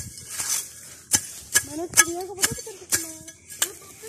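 A small hand digging tool striking into grassy soil again and again, sharp knocks about two a second, digging a small hole.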